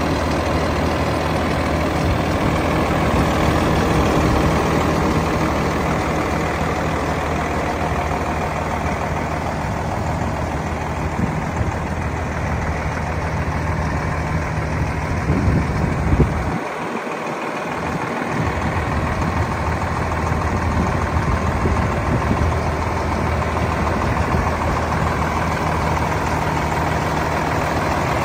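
The diesel engine of a Peterbilt 348 truck, a PACCAR, idling steadily at a constant pitch, with a brief bump on the microphone about halfway through.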